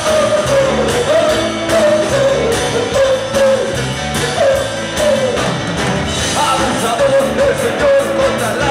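Live rock band playing loud through a PA: electric guitars, bass and drums, with a melody line that bends and slides above them.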